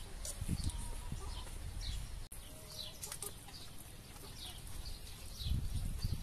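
Outdoor ambience of birds chirping: short, high, falling chirps repeating every second or so, with low rumbles and handling thumps near the start and end.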